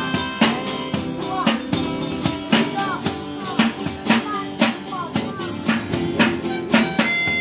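Street busker band playing music: a steady beat of drum strikes, about two a second, under held instrument tones.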